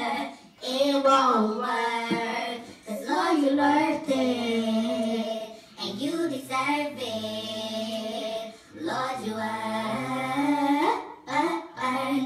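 A young girl singing solo in a gospel style: long held notes with pitch slides and runs, in phrases broken by short breaths.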